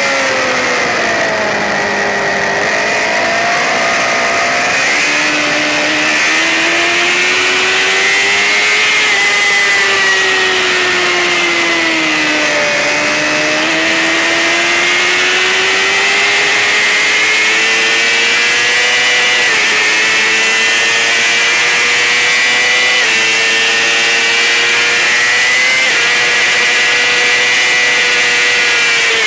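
Racing sportbike engine at high revs. Its pitch sinks twice, about two seconds and twelve seconds in, as the bike slows, and climbs again as it accelerates, with a few small steps in pitch in the second half.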